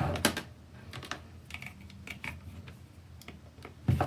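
Scattered light clicks and taps of plastic parts being handled as a charging cable is plugged into a VR headset's comfort strap, with a louder knock near the end.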